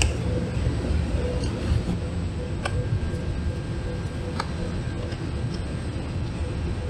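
A few sharp clicks and taps as a flathead screwdriver pries at the plastic clips holding the grille in a plastic bumper cover, over a steady low hum.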